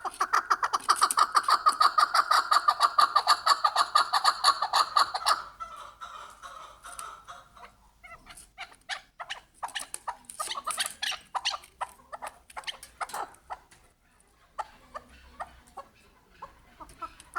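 Chukar partridge calling: a rapid, steady run of repeated chuck notes for about five seconds, then it breaks off into scattered, quieter clucking notes with pauses.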